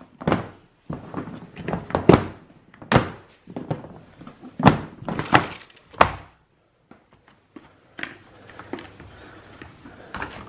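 A series of dull thuds and knocks, about ten, at irregular spacing; the later ones, after a short pause, are fainter.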